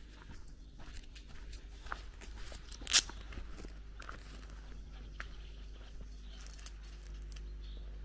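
Footsteps crunching on a gravel path, about two steps a second, with one much louder sharp crunch or snap about three seconds in.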